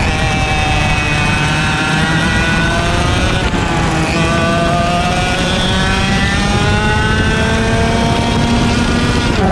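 IAME X30 125cc two-stroke kart engine at racing speed. Its pitch climbs steadily, drops sharply about three and a half seconds in, then climbs again as the kart accelerates.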